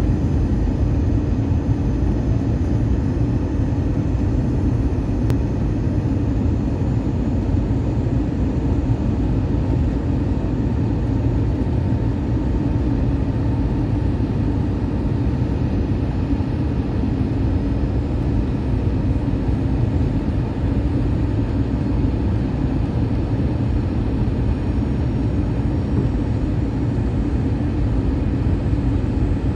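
Steady airliner cabin noise aboard an Airbus A321 on its approach: an even, deep rumble of the engines and the air rushing past the fuselage.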